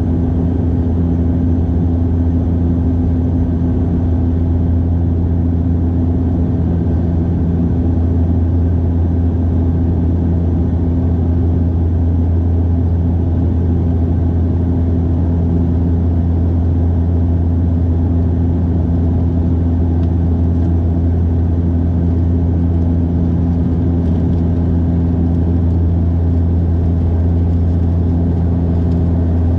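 Steady engine drone inside an airliner cabin: a strong deep hum with a few steady low tones above it, unchanging throughout.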